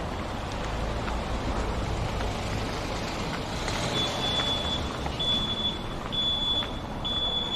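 Street traffic noise from passing vehicles. From about four seconds in, a high electronic beep repeats about once a second.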